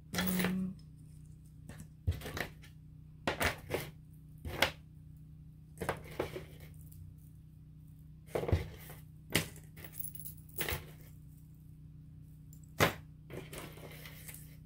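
Loose metal earrings clicking and clinking against each other and a hard surface as they are picked through and set down by hand, in a string of short, sharp, irregular clicks.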